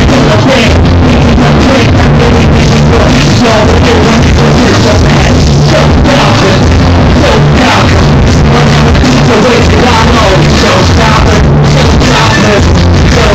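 Live hip-hop performance: a rapper's amplified vocal over a loud backing track with heavy bass, heard through a club PA. Very loud and unbroken throughout.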